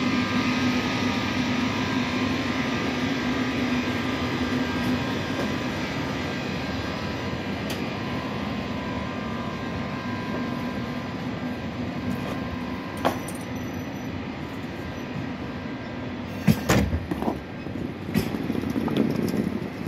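TGV POS high-speed electric train pulling slowly through the station. Its power car gives a steady hum that fades as it moves off, and a few sharp clanks come near the end.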